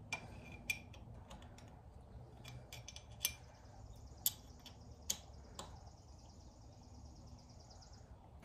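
Sparse sharp metallic clicks and clinks, about six of them, some ringing briefly, as nuts are tightened underneath a motorcycle engine. A faint high steady buzz starts about three seconds in and stops shortly before the end.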